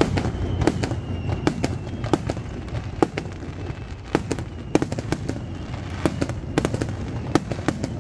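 Aerial fireworks going off in a rapid, irregular barrage of sharp bangs and cracks, several a second, over a low rumble, during the climax of the display.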